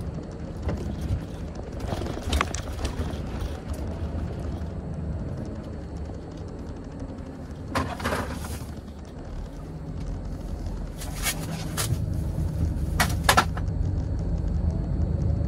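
Engine and road noise inside the cab of a Volvo FH truck on the move, a steady low rumble that grows louder in the last few seconds. A few brief sharp noises break in along the way.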